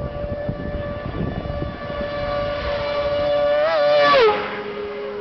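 Racing sidecar outfit coming down the road flat out, its engine holding a high, steady note and growing louder. The note wobbles briefly, then drops sharply in pitch as the outfit passes close by, and runs on at a lower, steady note as it goes away.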